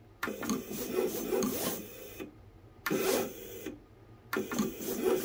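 Vevor 28-inch vinyl cutter running its built-in test cut, its carriage and feed motors whirring in three spurts as the blade cuts a small test square.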